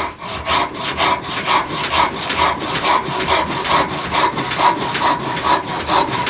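Silky Sugoi pull saw with a freshly hand-filed blade cutting through hard maple firewood in rapid, even strokes. The sharpened teeth are biting hard into the hardwood.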